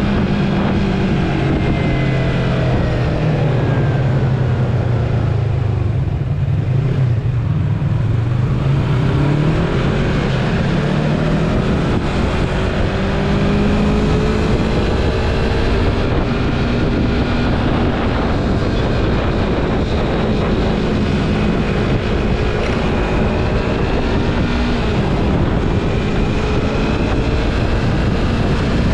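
Yamaha MT-03 motorcycle engine under way. Its note drops over the first few seconds as it slows, climbs again about ten seconds in, then holds fairly steady over a constant rush of noise.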